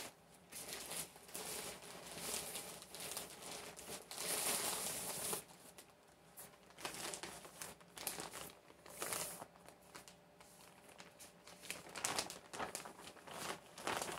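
Plastic packaging bags crinkling and rustling as they are handled and unfolded, in irregular bursts, with a longer stretch of crinkling about four seconds in.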